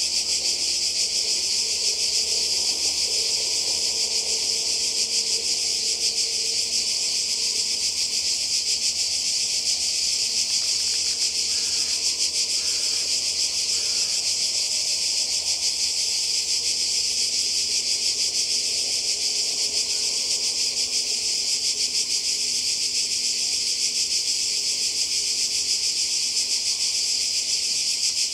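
A chorus of cicadas shrilling: a dense, steady, high-pitched buzz that carries on without a break.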